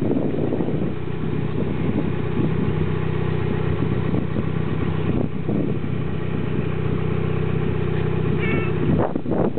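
Turbocharged 420a four-cylinder engine running steadily through a catless 2.5-inch downpipe and 3-inch catback exhaust, with a few short uneven pulses near the end.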